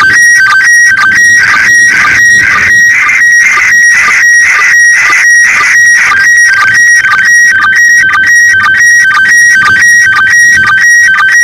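Slow-scan television (SSTV) picture signal from the International Space Station's ARISS transmission on 145.800 MHz, heard through a handheld FM radio. It is a loud, continuous warble of tones that repeats in a steady, quick rhythm, one beat for each scan line of the picture.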